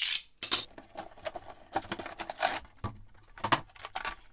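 Clear plastic blister tray and cardboard box crackling and rustling in irregular bursts of crinkle as the action figure's tray is pulled out of the box.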